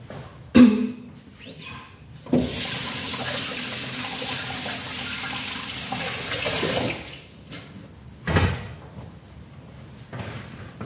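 Kitchen tap running into a sink for about four and a half seconds, then turned off. A sharp knock, the loudest sound, comes just before it, and another thump comes about a second and a half after.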